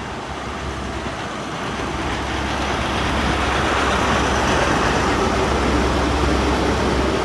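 Class 43 HST power car diesel engine running as the train draws in, a steady low hum with rumble that grows louder over the first few seconds and then holds.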